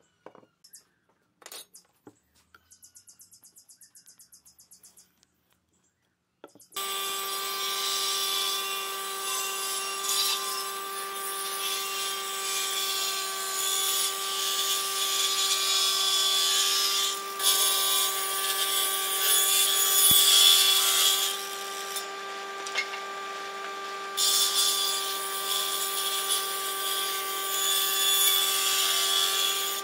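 A few light clicks and scratchy ticks as wood is marked with a pen, then, about a quarter of the way in, a table saw on a combination woodworking machine starts sounding with a steady motor hum. The blade cuts a lengthwise slot into a solid timber block in long passes, with short breaks between them.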